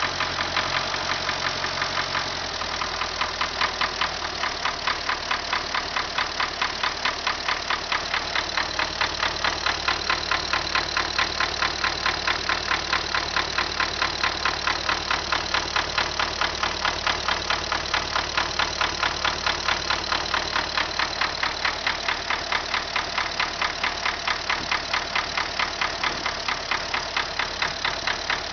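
MTZ tractor diesel engine running steadily with a regular knock sounding a few times a second, a knock inside the engine.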